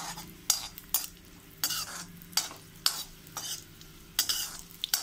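A steel spoon stirring raisins in hot ghee in a black kadai, scraping the pan roughly twice a second, with the raisins sizzling as they fry.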